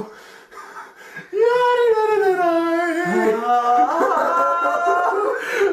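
Two young men singing drawn-out, wavering notes in turn, starting about a second in, with the voices overlapping near the end.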